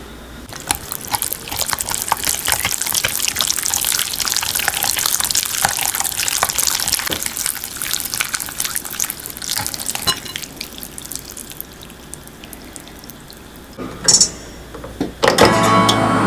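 Wire whisk quickly beating a thick, part-cooked potato-starch paste in a glass bowl: wet slapping with fast clicks of the wires against the glass for about ten seconds, then dying down. Near the end, a short loud tone.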